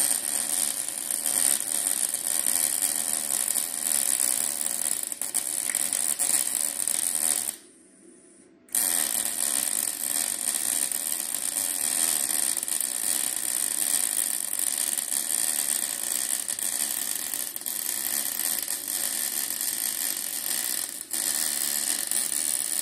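MIG welder laying beads over cracked welds on a steel exhaust pipe, a steady crackling sizzle. It stops for about a second roughly eight seconds in, then resumes as a second long run.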